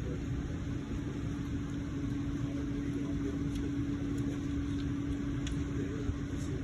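Laundromat machine motor running with a steady hum over a constant low rumble; the hum settles in about half a second in.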